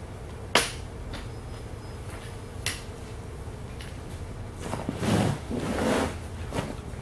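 Metal frame tubes of a TRAK folding kayak being handled and fitted together: a sharp click about half a second in and a lighter one a couple of seconds later, then a second or so of shuffling and scraping as the frame sections are shifted over the hull skin.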